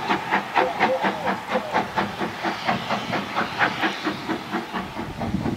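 Steam locomotive pulling a train away, its exhaust chuffing in an even rhythm of about four beats a second over a hiss of steam, fading slightly near the end.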